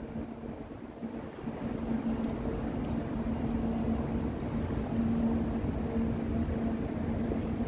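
Steady low machine hum over a low rumble of city noise, with a fainter higher tone above the hum.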